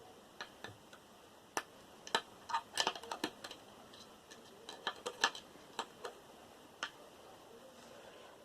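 Irregular light clicks and taps of a screwdriver and small metal parts being handled while a hard drive is taken apart, bunched into quick runs about a third and two-thirds of the way through.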